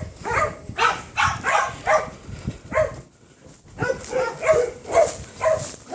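Dogs barking in a kennel, short barks repeating about every half second with a brief pause about three seconds in.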